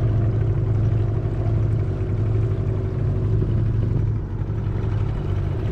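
Boat engine running steadily at low speed: an even low hum.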